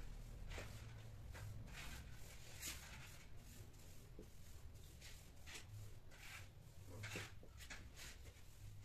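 Faint, irregular soft rustles and scuffs over a low room hum: a long-haired cat rolling about on a tiled floor.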